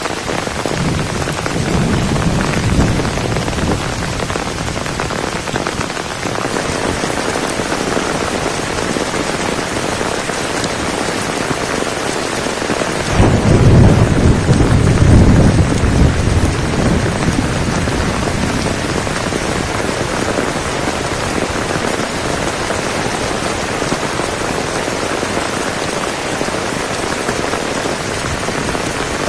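Heavy rain falling steadily, with a low rumble of thunder a couple of seconds in and a louder, longer roll of thunder lasting about four seconds around the middle.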